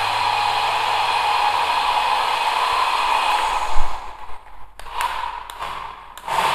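Small electric motor and gears of a toy RC car whirring steadily as it drives. A thump comes about four seconds in, then the whir stops for about two seconds and starts again near the end.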